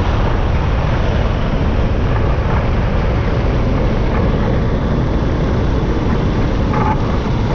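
FK9 ultralight's propeller engine running steadily while the aircraft rolls down the runway in a touch-and-go. It is heard as a steady, low-heavy rush of engine and airflow noise on a camera mounted outside by the cowling.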